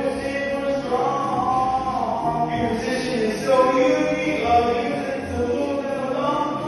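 Male voices singing a stage musical number over backing music.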